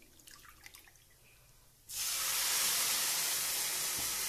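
Water pouring in a steady stream from a steel pot into a plastic measuring cup, a rushing hiss that starts suddenly about two seconds in.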